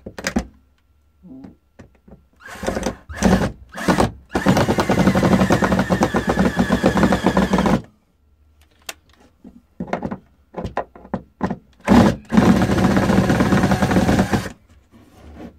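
Black & Decker cordless drill driver driving wood screws through a wooden rail into a board. There are a few short blips of the motor, then two longer runs under load of a few seconds each, with knocks and clicks of handling between them.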